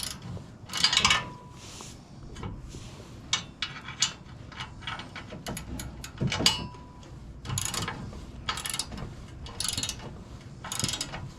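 Hand ratchet wrench clicking in a series of short strokes while fasteners are tightened, with knocks of metal parts being handled.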